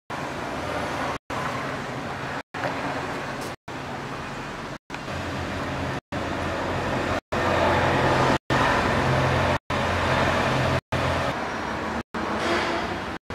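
An engine running steadily with a low hum, louder from about seven seconds in. The sound drops out completely for an instant roughly every second and a quarter.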